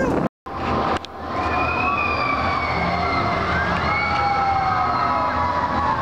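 Steel roller coaster train running on its track: several long, high whining tones that slide slowly down and overlap, over a steady rumble. The sound cuts out completely for a moment near the start.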